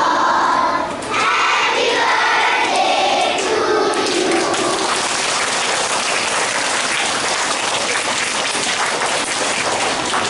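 A crowd of children singing together for about the first four seconds, then breaking into steady applause that carries on to the end.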